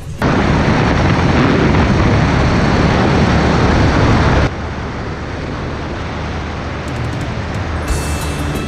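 Wind rushing over the camera microphone along with a Suzuki Big Boy 250 motorcycle's engine running as it rides at speed. The noise drops sharply about halfway through.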